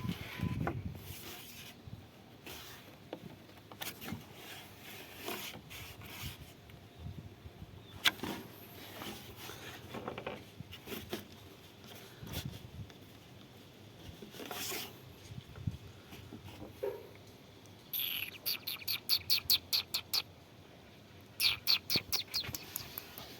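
A bird chirping in two quick runs of rapid, evenly repeated high notes near the end, over faint scattered clicks and rustling.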